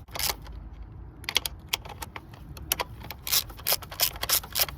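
Irregular light clicks and clatter of hard plastic and metal parts being handled, as a replacement ignition coil is fitted into the engine. One click comes at the start, then a steady run of them from about a second in.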